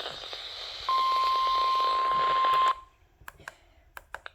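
Radio receiver hissing with static, then a steady single tone for just under two seconds starting about a second in. It cuts off suddenly, leaving near silence broken by a few faint clicks.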